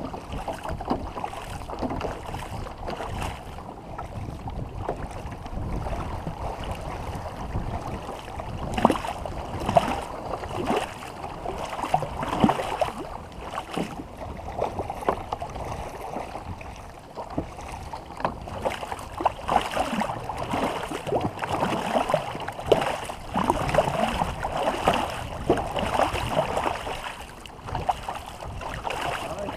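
Water splashing and churning as a war canoe is paddled, with frequent irregular sharp splashes from the paddles over a steady wash of water.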